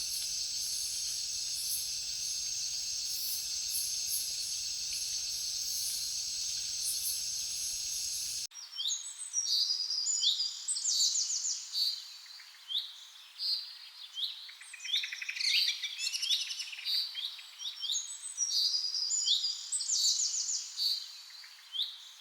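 A steady high-pitched hiss for about the first eight seconds, then an abrupt switch to songbirds chirping: many short, sharp chirps and quick falling notes, coming in irregular clusters.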